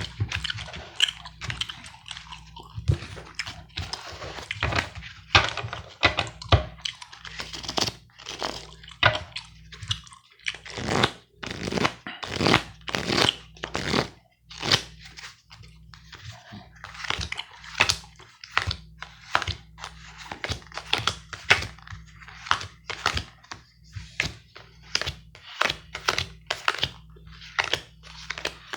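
Close-miked gum chewing mixed with playing cards being handled and laid down: a dense, irregular run of short clicks, snaps and crunches.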